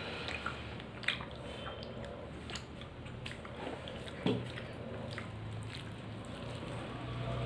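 Soft squishing of rice and dal being mixed by hand on a plate, with scattered small clicks and two sharper knocks, about a second in and after four seconds, from steel serving bowls being handled while dal is served.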